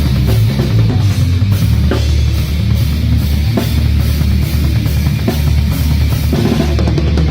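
Live rock band jamming loudly: heavy distorted guitar and bass over a driving drum kit, with no vocals.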